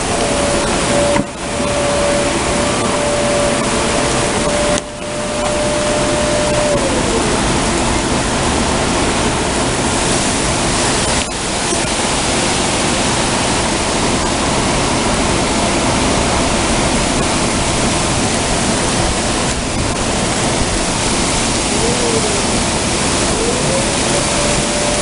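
Heavy rain pouring down in a thunderstorm, a loud, steady, dense hiss. A faint steady hum sits underneath; it drops in pitch and fades about seven seconds in, then returns near the end.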